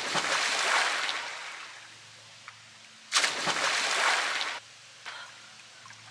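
A person jumping into a swimming pool: two big splashes, one at the start and one about three seconds later, each a sudden crash of water that washes away over a second or so.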